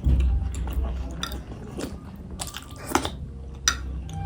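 Close-up chewing and slurping of soup-soaked momo dumplings: wet, squishy mouth sounds with scattered small clicks.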